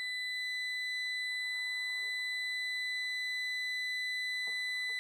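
A steady, high-pitched sine test tone, one constant pitch with faint overtones, played by a computer audio app through a MOTU UltraLite mk5 audio interface.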